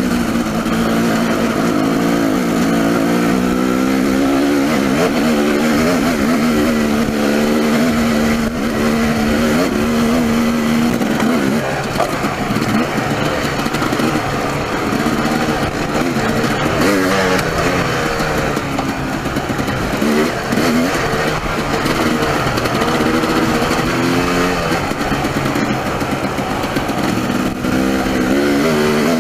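Dirt bike engine running while riding, its pitch rising and falling again and again as the throttle is opened and closed.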